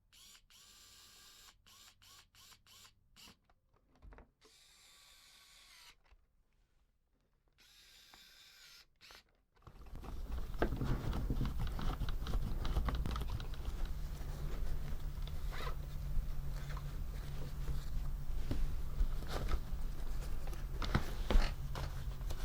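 A small electric motor driving a plastic gear train starts about ten seconds in and runs steadily, with a low hum and rapid clicking of the gears. Before that there are only faint, scattered handling ticks.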